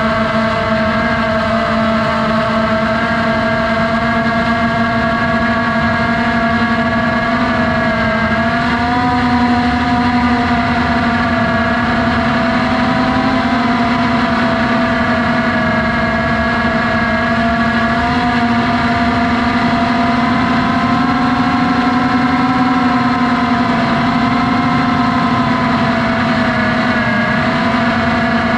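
FPV drone's electric motors and propellers humming steadily, their pitch drifting slightly up and down as the throttle changes.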